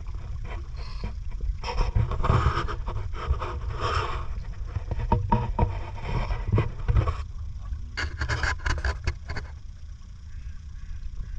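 Paddled boat moving across floodwater: irregular bursts of splashing and sloshing water from the paddle strokes, busiest in the first half and again about eight seconds in, over a steady low rumble of wind on the microphone.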